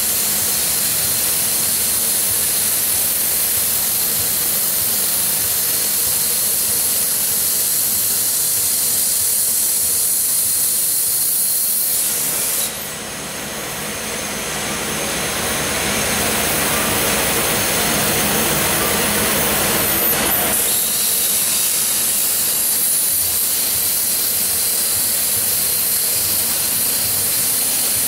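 Plasma cutting torch of a gantry plasma table hissing steadily as it cuts through a steel dome. About twelve seconds in the sound dips and changes to a different rushing hiss for about eight seconds, then the steady cutting hiss returns.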